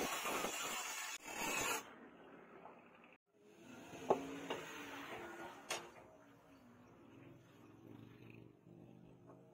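Angle grinder with a flap disc grinding a leaf-spring steel machete blade, stopping abruptly about two seconds in. Then a few light metal knocks as the blade is set into a clamp on a wooden bench, over a faint low hum.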